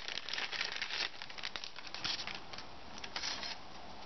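Clear plastic bag crinkling as it is handled and opened to take out propellers. The crinkling is dense at first and dies away near the end.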